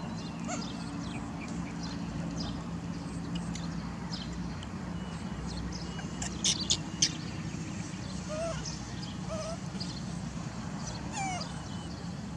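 Faint short animal squeaks and chirps over a steady low hum. Three sharp clicks come close together about six and a half seconds in, and a short falling chirp about eleven seconds in.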